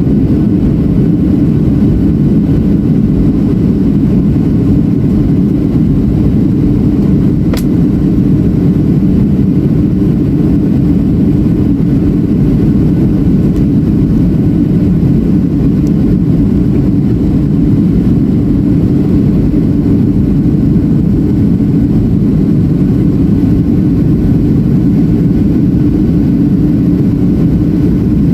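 Cabin noise inside a Boeing 737-700 on approach: a steady low rumble of its CFM56-7B jet engines and airflow, heard from a window seat beside the wing. A brief faint click about seven and a half seconds in.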